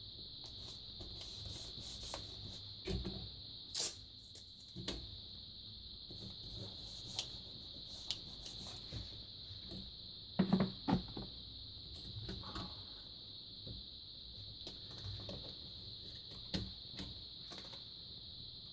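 Scattered light clicks and knocks of a flat-screen TV's power supply board and screws being handled and fitted back into the set, over a steady high hiss. The loudest knocks come about four seconds in and again around ten to eleven seconds in.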